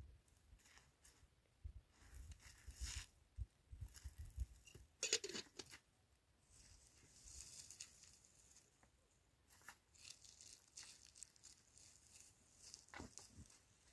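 Very quiet, with faint intermittent rustling and crackling and one louder brief rustle about five seconds in.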